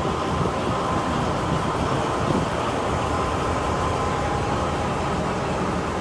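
Heritage diesel locomotive idling while standing at a platform: a steady engine rumble with a faint steady whine.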